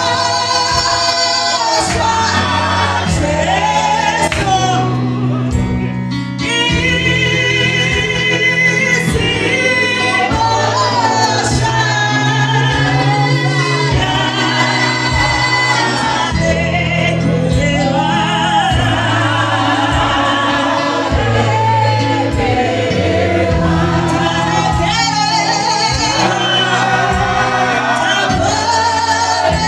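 Live gospel praise song sung in Shona by a woman lead singer on a microphone, with backing singers joining in. Amplified accompaniment carries a bass line and a steady beat.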